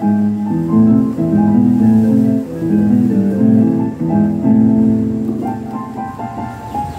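Electronic keyboard played with a piano sound: a melody over steadily repeated chords, softening a little near the end.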